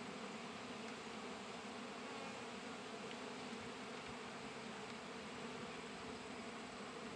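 Honey bees from an opened hive buzzing: a steady, even low hum.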